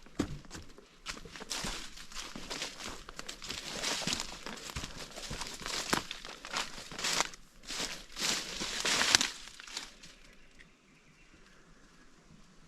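Crunching and rustling of footsteps through forest leaf litter and undergrowth, irregular and loudest near the end, stopping about ten seconds in.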